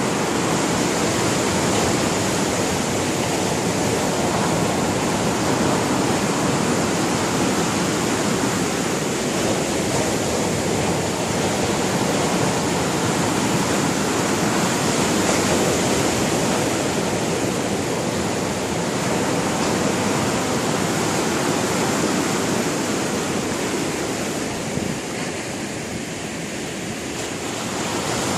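Sea surf: waves breaking and washing on the shore in a continuous dense rush, easing a little a few seconds before the end and building again.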